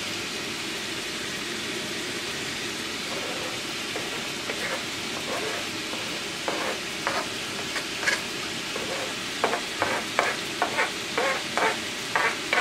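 Minced meat sizzling steadily in a frying pan, while a spatula scrapes chopped onion off a plastic cutting board into the pan, in short sharp strokes that come faster near the end.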